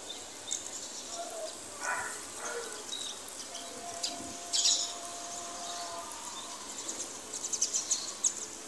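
Small birds chirping in short, sharp calls, most just before the middle and near the end, over a steady hiss of rain. A distant azan, the Muslim call to prayer, is faintly heard holding one long note in the middle.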